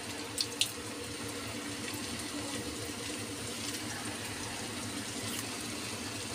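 Raw potato sticks deep-frying in very hot oil in an iron kadai, giving a steady bubbling sizzle. There are two sharp little pops about half a second in.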